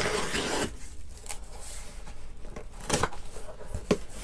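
Packing tape being ripped off a cardboard shipping box, a rasping tear in the first moment, followed by a few light knocks and rustles as the cardboard flaps are pulled open.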